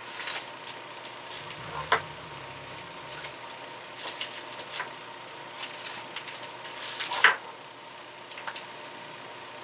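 Small stocking gifts and their wrappings being handled by hand: irregular crinkling and clicking of paper and plastic packaging, with a sharper click about two seconds in and the loudest snap about seven seconds in.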